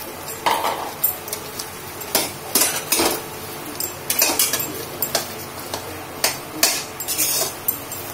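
A steel spoon stirs lumps of roasted khoya into boiling sugar syrup in a steel kadhai. It scrapes and clinks against the pan in irregular strokes, about one or two a second, over the steady hiss of the bubbling syrup.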